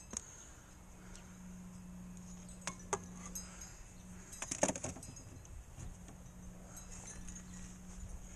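Metal tools being handled and clinking: a few single sharp clicks, then a quick cluster of clinks and rattles near the middle, over a steady low hum.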